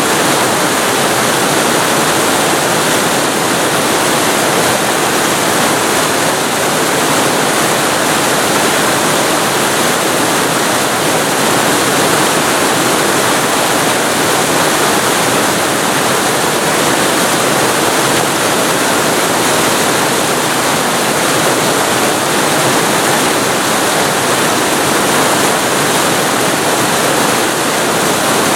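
Waterfall heard from very close to the falling water: a loud, steady rush of water with no break or change.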